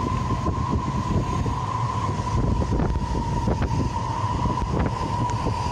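Strong wind buffeting the microphone with a heavy, fluttering low rumble, over the steady whine of a cargo jet's engines.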